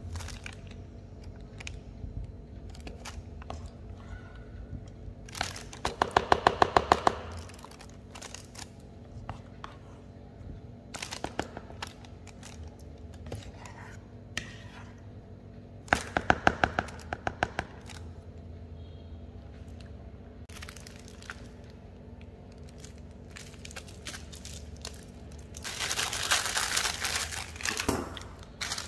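A spatula pushes choux dough into a plastic piping bag held in a cup, with scattered ticks and two short runs of rapid clicking. Near the end the plastic piping bag crinkles as it is handled.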